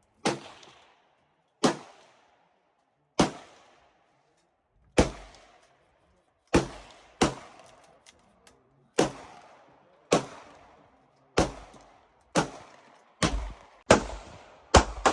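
A firearm shot repeatedly, single shots about one to two seconds apart that come quicker near the end, each trailing off in a short echo.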